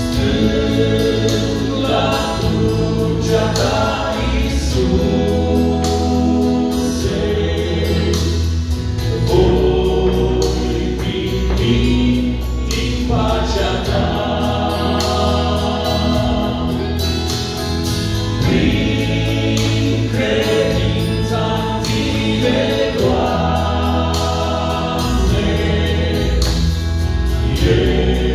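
Male vocal quartet singing a Romanian gospel song in harmony into handheld microphones, amplified through a sound system.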